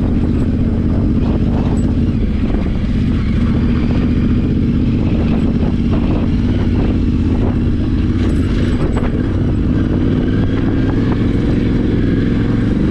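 Yamaha Ténéré 700's parallel-twin engine running at a steady pace on a rough dirt track. Scattered knocks and rattles from the bike going over bumps come through, heaviest about eight seconds in.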